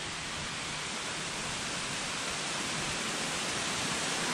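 Rushing water of a roadside mountain stream: a steady hiss that grows gradually louder.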